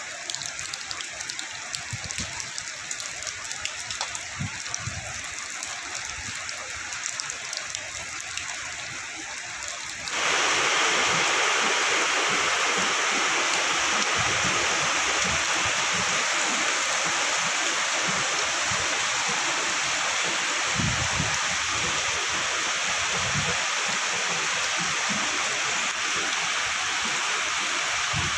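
Heavy rain pattering on pooled water over concrete. About ten seconds in it gives way abruptly to a louder, steady rush of rainwater gushing from a drain spout and splashing across the flooded floor, with rain still falling on it.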